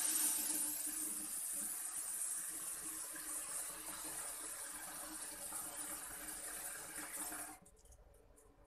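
Kitchen tap running water into a pan, filling it, the rush of water slowly growing quieter. The tap shuts off suddenly about seven and a half seconds in.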